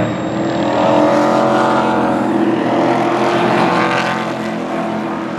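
Race trucks' engines running hard at full throttle as a pack of trucks passes close by. The sound swells about a second in, holds for a few seconds, then fades near the end.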